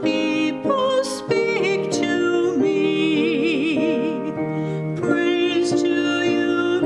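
Church music: held, sung-like notes with a strong vibrato over a keyboard accompaniment, changing note every second or so.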